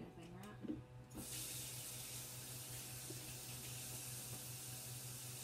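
Kitchen sink faucet turned on about a second in and running steadily as hands are washed free of lemon juice, after a couple of small knocks.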